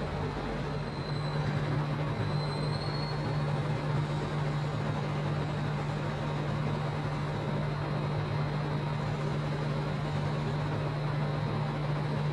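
Steady low machine hum over a constant rushing noise, with no break or change.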